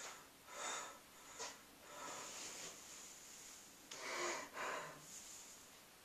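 A man breathing hard in heavy, uneven breaths: one sharp breath early, a longer, softer exhale in the middle, then two strong breaths close together near the end.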